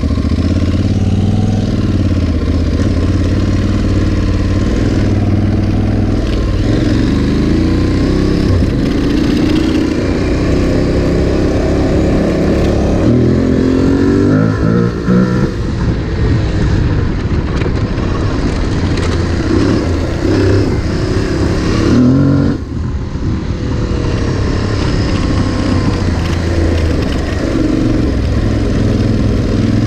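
Aprilia Tuareg 660's parallel-twin engine running under way on a dirt track, its pitch rising and falling as the throttle opens and closes, with a brief drop-off about two-thirds of the way through.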